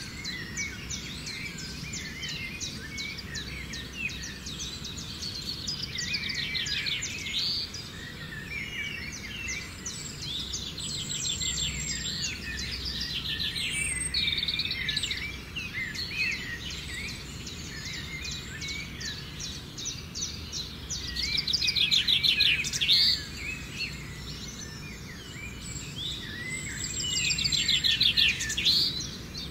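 Many wild birds chirping and calling together, with rapid trills that swell loudest twice in the second half, over a low steady background noise.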